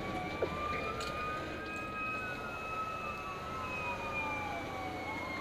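Fire apparatus sirens wailing: two slow rising-and-falling tones, one sweeping down near the end, over a steady engine and road rumble.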